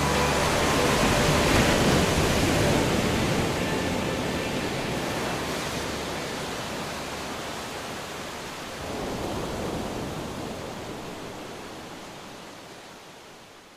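Ocean surf: small waves breaking and washing up the beach as a steady rush, swelling about nine seconds in and then slowly fading out.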